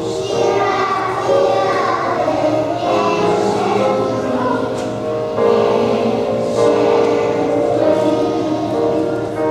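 A class of young children singing a song together in unison, with held notes.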